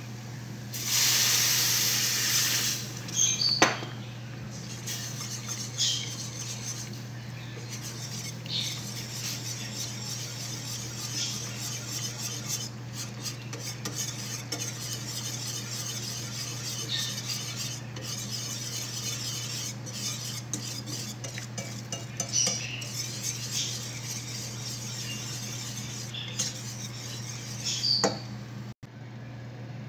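Wire whisk stirring and scraping in a stainless steel pan, clinking against the metal now and then, as a butter-and-flour roux is whisked with milk into béchamel sauce. About a second in, a loud hiss lasts about two seconds as the milk hits the hot roux. A steady low hum runs underneath.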